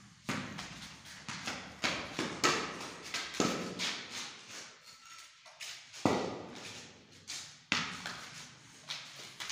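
Irregular run of sharp knocks and thuds on a concrete floor, several a second: a tennis ball bouncing and a toy cricket bat striking and tapping the ground.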